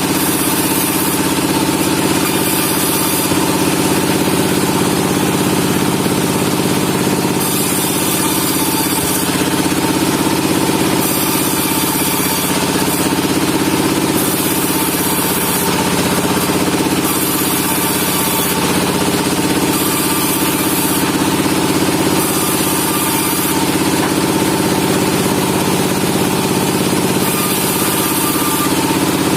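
Sawmill machinery running with a steady, loud engine-like drone, with a high hiss that comes and goes every few seconds.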